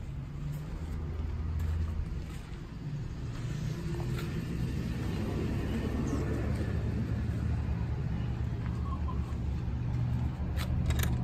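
A steady low mechanical hum, with a few sharp clicks near the end.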